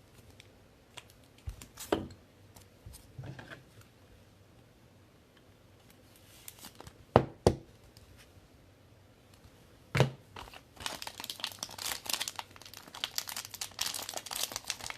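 Trading card packaging being handled: a few sharp clicks and taps, then from about eleven seconds in a continuous crinkling and tearing of a plastic or foil wrapper being opened.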